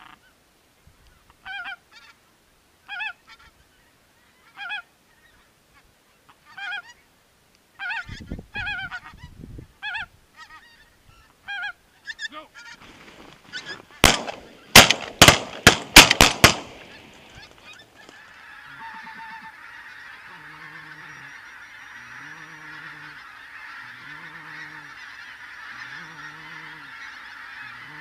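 Geese honking, single calls every second or two, then a quick volley of about seven shotgun shots about halfway through. After that, a large flock of geese calling overhead in a steady, dense clamour, with a lower call repeating every second or so.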